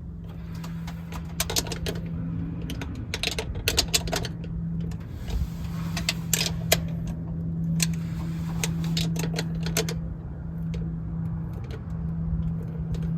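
Hand tools clicking and clinking on metal in irregular clusters while fasteners on a carburetor are checked, over a steady low hum.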